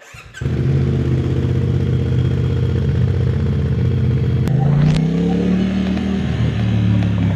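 CFMOTO 450SRS parallel-twin engine idling steadily, then revved once about halfway through, with a click as the revs begin, the pitch rising, holding briefly and falling back to idle.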